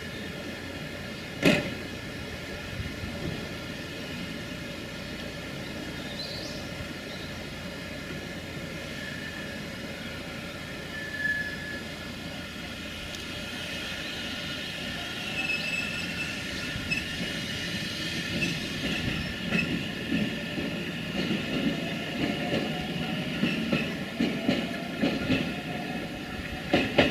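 JR Central 313 series electric train pulling out of a station. There is a single sharp knock near the start, then wheels clack over the rail joints while the motor whine slowly climbs in pitch as the train gathers speed.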